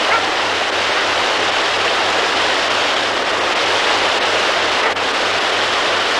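Steady rushing of a river waterfall: an even, unbroken wash of water noise.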